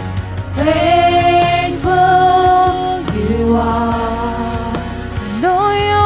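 Live worship music: the worship team's vocalists singing a series of long held notes over a steady low accompaniment.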